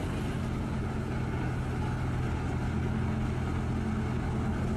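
Heavy vehicle engine running steadily: an even, unchanging drone with a constant low hum.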